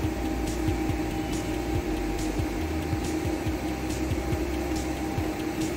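Steady mechanical hum of workshop machinery, with faint short scrapes about once a second as a plastic spreader works body filler over a bus's side panel.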